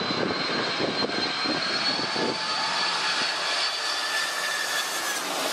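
Boeing 747's four turbofan engines on low final approach: a steady high-pitched jet whine over a broad rush of engine noise.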